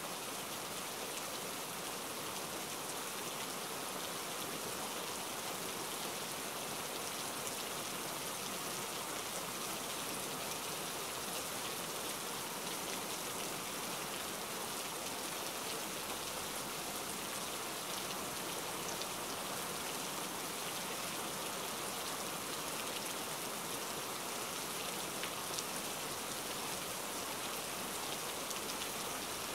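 Steady rain falling: an even hiss with many small drop hits.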